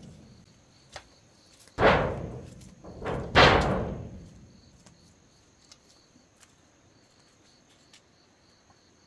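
Two loud crashes about a second and a half apart, each dying away over about a second, as pieces of an old house come down during demolition. Insects trill steadily behind.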